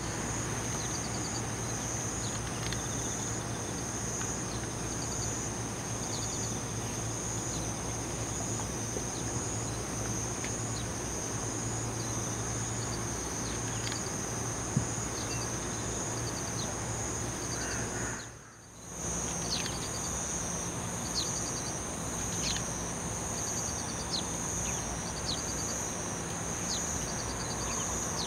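Outdoor countryside ambience of insects trilling in a steady high pulsing drone, with short bird chirps scattered throughout over a faint low hum. The sound dips out briefly about two-thirds of the way through, then the insects and chirps carry on.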